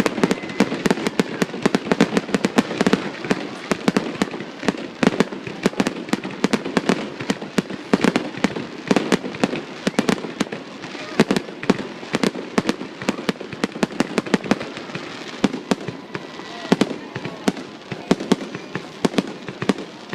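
Fireworks going off in a dense, continuous barrage of sharp bangs and crackles, several a second.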